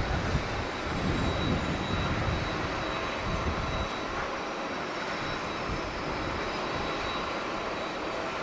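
Jet airliner engines running as a plane passes, a steady rushing noise with a thin high whine and a faint, slowly falling whistle above it. Strong wind buffets the microphone with low rumbling gusts in the first half, easing about halfway through.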